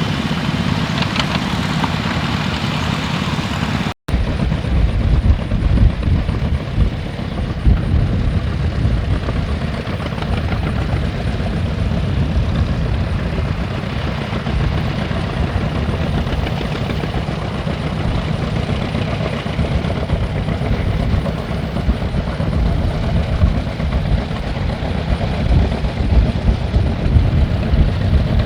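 A heavy engine running steadily. The sound cuts out for an instant about four seconds in and picks up again.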